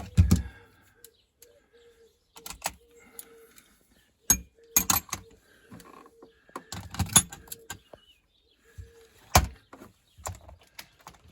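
Irregular knocks, clicks and light clatter of hard objects being handled, about a dozen separate sharp strikes spread unevenly, the loudest just after the start and about nine seconds in.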